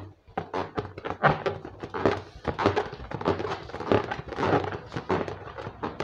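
Inflated latex balloon being handled up close while its untied neck is twisted shut: a dense run of irregular rubbery rubbing, creaks and small knocks.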